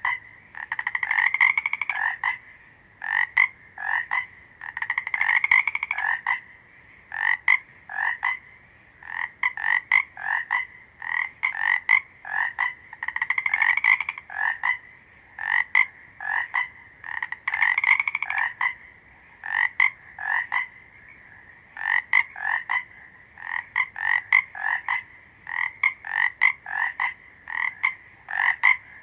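Frogs croaking: short, fairly high calls repeated every half second or so, broken four times by longer bouts of rapid croaks lasting a second or two.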